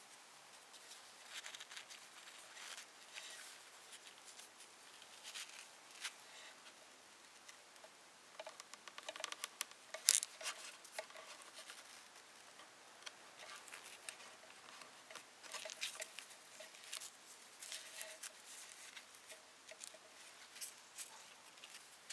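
Faint rustling, scratching and small clicks as hands work cloth tape and straight pins, with a busier patch of sharp ticks about ten seconds in.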